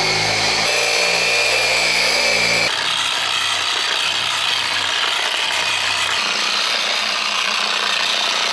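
Electric rotary polisher running steadily with a high motor whine as its wool and foam buffing pads spin against a fiberglass boat hull, buffing the oxidized gel coat to a shine. The tone shifts abruptly twice in the first three seconds.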